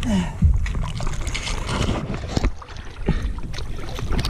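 Water slopping and splashing against the side of a small boat, with wind buffeting the microphone and a few sharp knocks.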